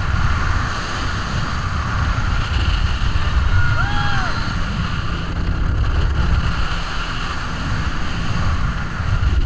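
Speedboat underway at speed: engine running under rushing wind buffeting the microphone and water noise from the hull. About four seconds in, a short rising-then-falling cry stands out.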